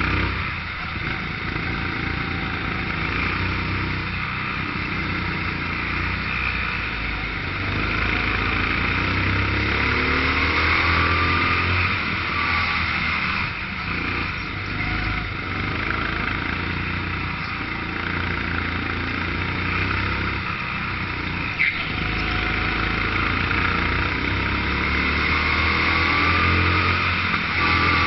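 A 13 hp rental kart's engine running close to the microphone as the kart laps the track, its revs rising and falling as it accelerates and slows through the corners.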